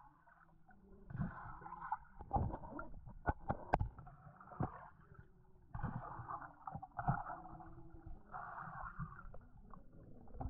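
Muffled underwater sound picked up through a GoPro's waterproof housing submerged in a creek: low water rumble and swishing with irregular knocks and thumps, and a sharp click a little under four seconds in.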